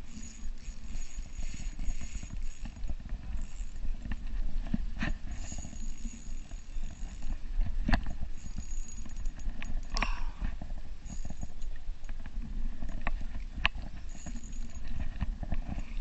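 Wind rumbling on the microphone, with scattered clicks and knocks from a Shimano Sahara 500 spinning reel being cranked on a light rod during a lure retrieve.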